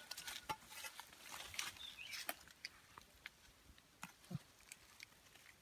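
A digging blade chops and scrapes into dry mud among dead leaves, making a string of short, faint knocks and scrapes. A brief high chirp comes about two seconds in, and a short low grunt-like sound a little after four seconds.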